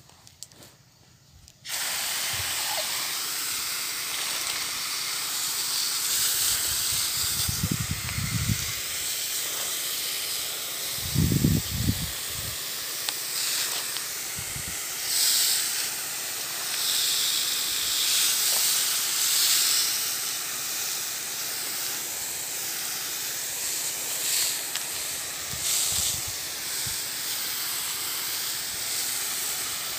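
Pressure-washer spray lance hissing steadily as it sprays a fine mist, starting after a moment of quiet at the very beginning. A few short low thumps come around the middle.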